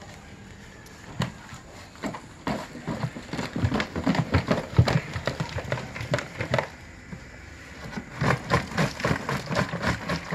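Fish and blue swimmer crabs tumbling out of a black rubber container onto a plastic feed sack: a dense run of wet slaps, thuds and shell clicks. It comes in two spells, with a short lull about two-thirds of the way through.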